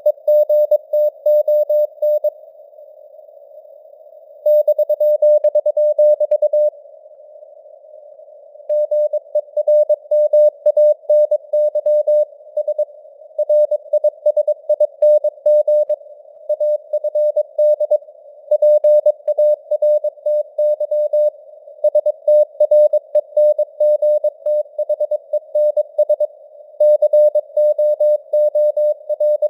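Morse code (CW) sent at 22 words per minute: a single steady mid-pitched tone keyed on and off in dots and dashes over simulated radio hiss. Twice near the start the keying stops for about two seconds, leaving only the hiss.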